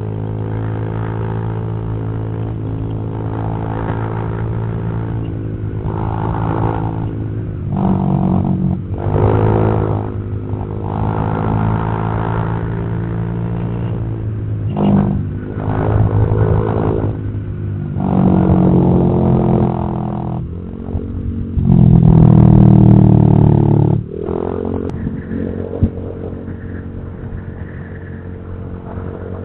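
Honda Vario 150 scooter's single-cylinder engine, fitted with an imitation aftermarket exhaust, running and revved several times. It goes from a steady low note to louder rising-and-falling revs, the biggest near the end.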